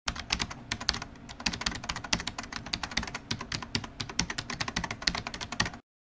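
Rapid computer-keyboard typing, a fast irregular run of key clicks that stops abruptly shortly before the end.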